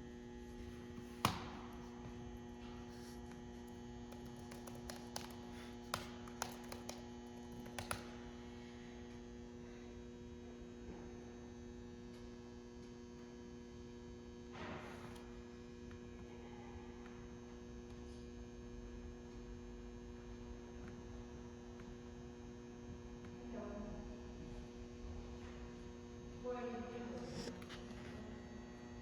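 Steady electrical mains hum, a low tone with a few higher overtones, with a handful of sharp taps and clicks, most of them in the first eight seconds and one about fifteen seconds in.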